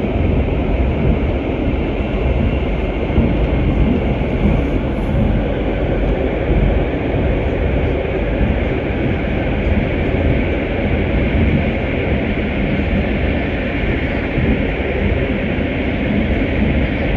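Steady rumble and rush of a GTX-A express train running at speed, heard from inside the passenger car.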